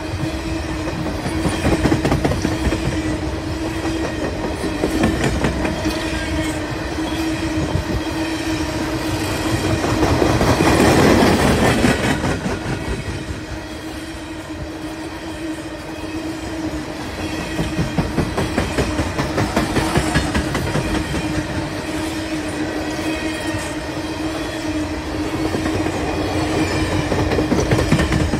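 Freight train of open-top gondola cars rolling past at speed: steel wheels clattering on the rails over a steady hum, with a louder rush about ten seconds in.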